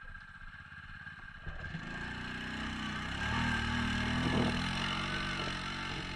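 Off-road engines running: an ATV's engine under throttle as it climbs a steep dirt slope, growing steadily louder from about a second and a half in.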